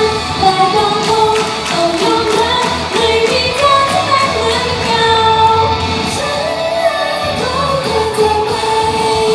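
Thai idol-group pop song with female vocals singing the melody over a full backing track.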